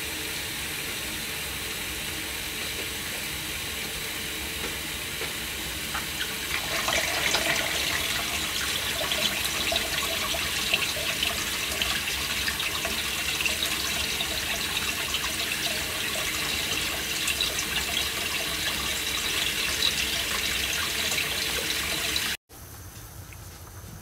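Kitchen tap water pouring onto a wok full of clams in a stainless-steel sink, splashing and pattering over the shells as they are rinsed. It grows louder and more splashy about six seconds in. Near the end it cuts off suddenly to a quieter steady background noise.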